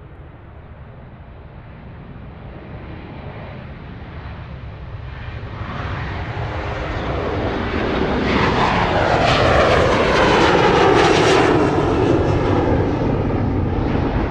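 An aircraft approaching and flying over, growing steadily louder to a peak about ten seconds in. Its tone slides downward in pitch as it passes.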